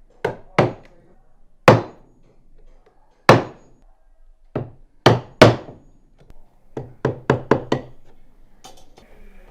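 A tool striking wood in a series of sharp, irregular blows, ending in a quick run of about six strikes around seven seconds in: hand work cutting into a wooden crossbow stock.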